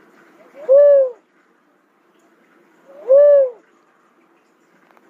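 A cuckoo-dove calling twice, about two and a half seconds apart. Each call is a faint short upslur followed at once by a loud hollow note that rises and falls.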